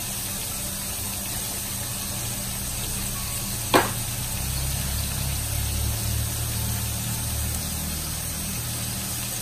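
Sliced chicken sausage frying in hot coconut oil in an aluminium pan: a steady sizzle over a low mechanical hum, with one sharp click about four seconds in.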